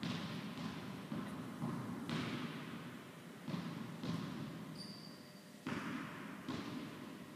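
Tennis ball impacts, racket strikes and bounces on the court, about eight sharp knocks at irregular intervals under a second apart. Each knock rings on in the echo of a large indoor tennis hall.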